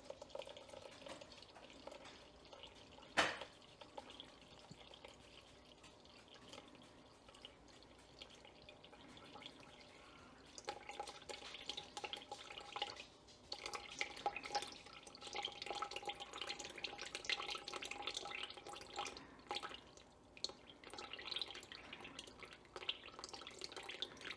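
Water poured in a thin trickle into a glass bowl of sourdough starter, dribbling and splashing, with a steadier stream and a faint ringing tone from about ten seconds in for roughly ten seconds. A single sharp click about three seconds in.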